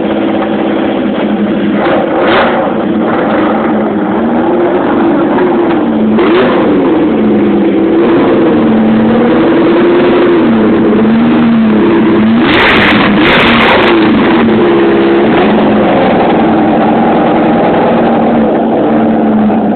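Alfa Romeo 33 Stradale's V8 engine running steadily at first, then blipped over and over, its pitch rising and falling with each rev. A louder, harsher burst of revs comes about two-thirds of the way through.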